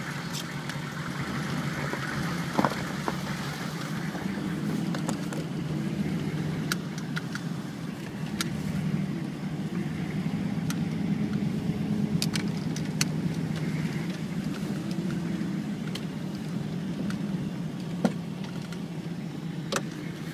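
Car engine running with a steady low hum, heard from inside the cabin, with a scattering of sharp clicks.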